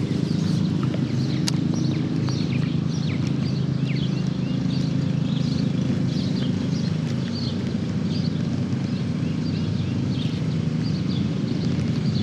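A steady low hum with small birds chirping again and again over it.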